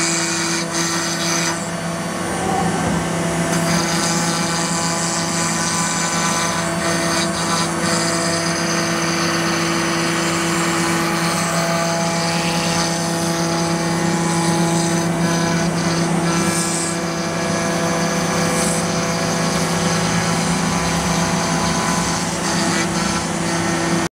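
CNC router spindle running with a steady hum as its bit routes a groove into a wooden door panel, the noise of the cut laid over the spindle's tone.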